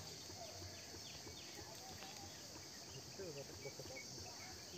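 Faint steady chorus of insects such as crickets, with faint distant voices.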